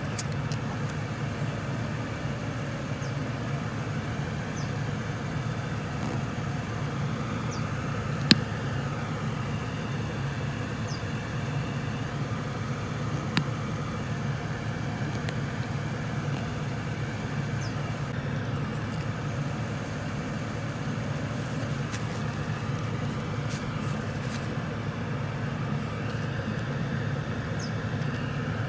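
Car engine idling steadily with the heater running, and two sharp clicks several seconds apart.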